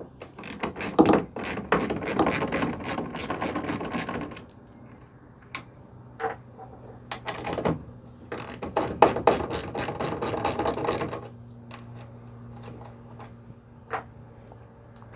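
Ratchet socket wrench with a 5/16 inch socket clicking rapidly as it backs out the bolt holding the truck's rear light housing. It runs in two spells of a few seconds each, with a few single clicks between them.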